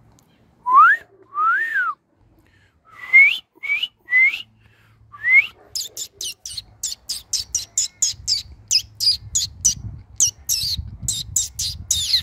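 Australian king parrot calling: a few separate clear whistles that rise in pitch, one rising then falling, followed from about halfway through by a fast run of short, high chirps, about four or five a second.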